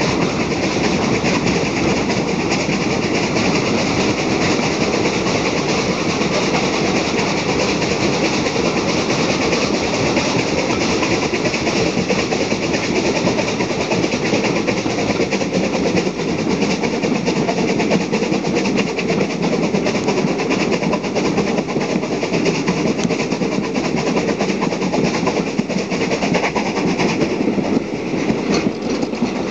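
Bulleid rebuilt West Country class three-cylinder steam locomotive 34046 'Braunton' working hard uphill, its exhaust beating steadily, with the coach wheels clicking over the rail joints close by. Near the end the train passes under a stone overbridge.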